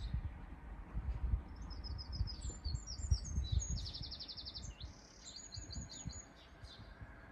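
A small songbird singing a high, varied song with a fast, even trill in the middle, from about a second and a half in until about five and a half seconds. An irregular low rumble runs underneath, and its peaks are the loudest moments.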